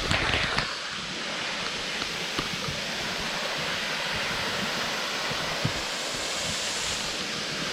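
Steady rush of a waterfall's falling water. A few short knocks sound in the first second.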